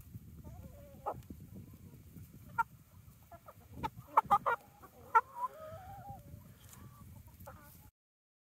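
Flock of hens and a rooster clucking as they feed: short, sharp clucks scattered through, loudest in a quick cluster about four seconds in, with one drawn-out call around five to six seconds. The sound cuts off suddenly near the end.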